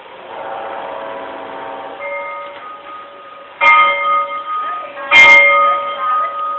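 Loud bell strikes about a second and a half apart, each ringing on over a quieter steady ringing tone.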